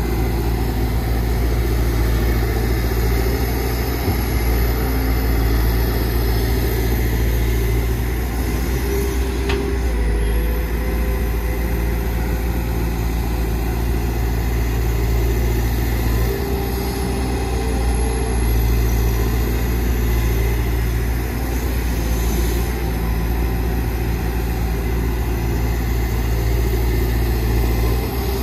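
Heavy diesel engine of a working excavator running steadily, its low note swelling and easing every few seconds as the load changes.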